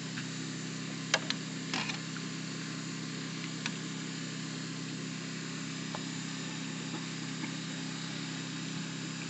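A steady, low engine-like hum with a faint high hiss above it. A metal ladle clinks against a stainless steel pan about a second in and again shortly after.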